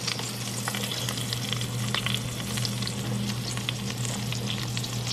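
Oven-roasted beef bones and short ribs sizzling on a baking sheet just out of a 450-degree oven, a steady crackle of many small pops from the hot fat and juices, over a steady low hum.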